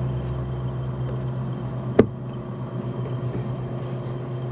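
Compressor of a 2006 Marvel bar fridge running with a steady low hum, and a single sharp click about two seconds in.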